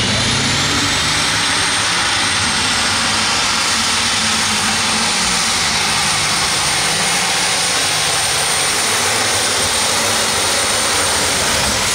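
Light super stock pulling tractor's turbocharged alcohol-burning engine running flat out under load, with a high turbocharger whine that climbs in the first second, holds steady and cuts off near the end.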